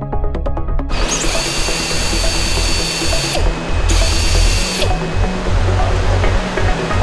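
Pneumatic vent cutting pistol for poultry evisceration running on compressed air: a loud hissing whir starts about a second in, stops briefly about halfway through, starts again, then goes on at a lower, duller level. Electronic background music with a steady beat plays underneath.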